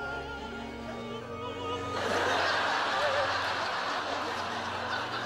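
Background music with sustained, wavering notes, then a live audience breaking into laughter about two seconds in, which swells and carries on.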